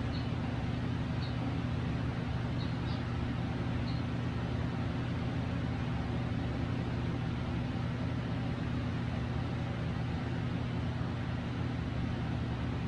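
Steady low mechanical hum of a running appliance, unchanging throughout, with a few faint short high chirps in the first few seconds.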